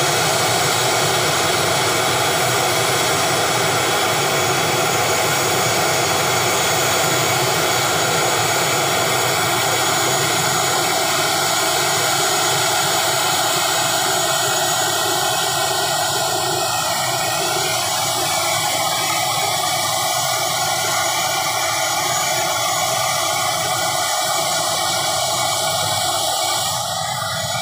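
A turboprop airliner's turbine engine running steadily on the ground: a loud, even rush with a high, steady whine, dipping slightly near the end.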